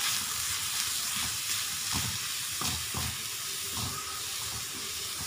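Crushed broccoli and chopped onions frying in oil in a non-stick kadhai, with a steady sizzle as the broccoli's water cooks off. A wooden spatula stirs and scrapes through the mixture in a few short strokes.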